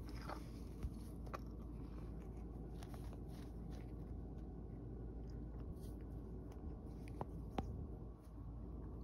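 A cat mouthing and gnawing at a person's hand: faint rustling of fur with a few soft sharp clicks, two of them near the end, over a steady low hum.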